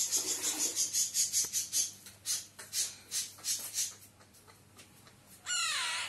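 Alexandrine parakeet chick making rapid raspy hissing sounds, about six a second, which slow down and fade after about two seconds. Near the end comes a short, louder, falling whistle-like sound.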